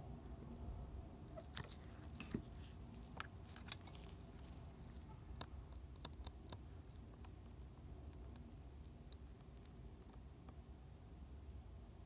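Faint scattered clicks and ticks of a soldering iron and tweezers handling a small circuit board, several sharper ones in the first few seconds, over a low steady hum.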